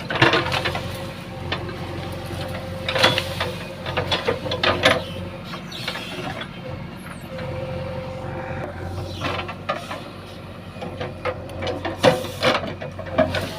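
JCB 3DX backhoe loader's diesel engine running steadily, with several bursts of metallic clanking and rattling from the working machine.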